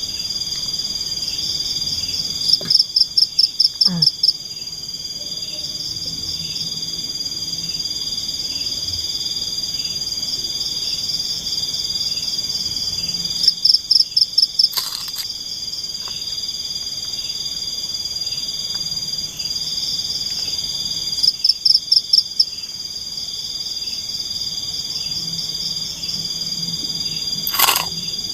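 Night-time tropical forest insect chorus: steady high-pitched shrilling of crickets and other insects. Four times, a louder call of about eight rapid pulses cuts in for a second or so. Two sharp clicks come in the middle and near the end.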